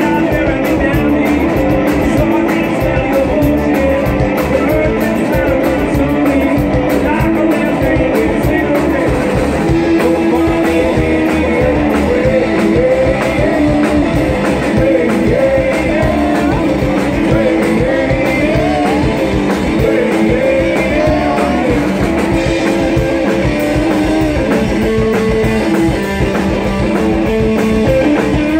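Live band playing rock and roll on electric guitar, upright bass and drum kit.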